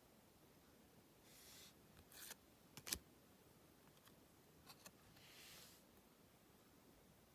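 Faint handling of trading cards: two soft swishes of cards sliding against each other, with a few light clicks and taps, the sharpest about three seconds in.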